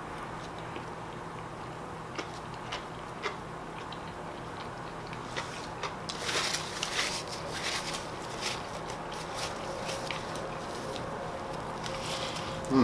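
A person chewing a fried chicken sandwich: scattered wet mouth clicks, with a stretch of crunching about halfway through, and a knock at the very end.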